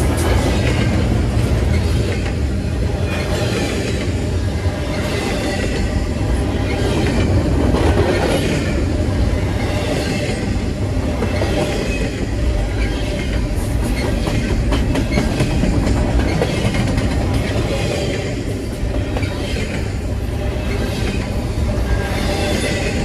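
Double-stack intermodal container cars of a long freight train rolling past at speed: a steady heavy rumble of steel wheels on rail, broken by a repeating clatter as the wheel sets pass.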